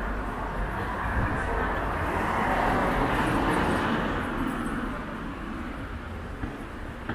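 A car driving past on the street. Its engine and tyre noise swells to a peak around the middle and then fades away.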